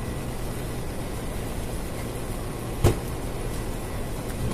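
Steady mechanical hum of kitchen machinery while raw chicken is stacked onto a shawarma skewer, with one sharp knock about three seconds in and a lighter one near the end.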